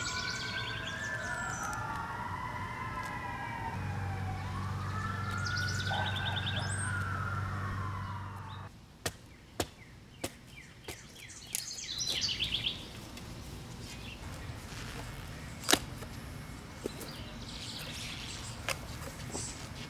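A distant siren wails, rising and falling, with birds chirping, and a low steady hum joins about four seconds in. After a cut about nine seconds in, a spade chops into turf and soil in sharp, irregular strikes, the loudest near the end.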